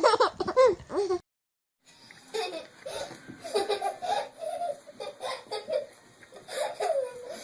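A baby laughing in repeated short bursts, broken by a brief gap about a second in.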